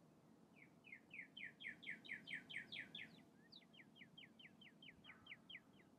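A songbird singing faintly: a run of short, repeated down-slurred notes, about four or five a second, swelling in loudness, then after a brief break a second, softer run of similar notes.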